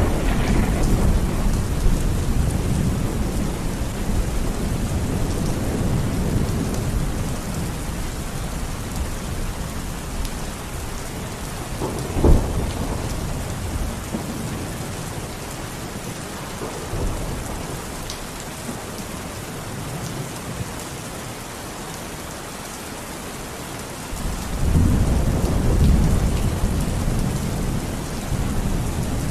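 Steady rain falling, with rolling low thunder. A sharp thunderclap comes about twelve seconds in, and another louder rumble builds near the end.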